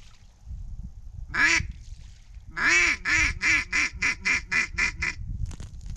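A mallard duck call blown by a hunter at a circling duck: one short quack, then a long quack followed by a quick run of about nine quacks, about four a second, in the pattern of a hen mallard's hail call.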